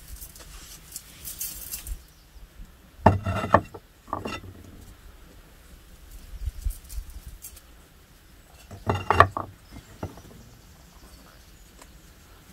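Small clay spice pots clattering as they are set down on and picked up from a wooden tray, once about three seconds in and again about nine seconds in. Between these, a faint patter of spices sprinkled by hand into an enamel bowl of chopped herbs.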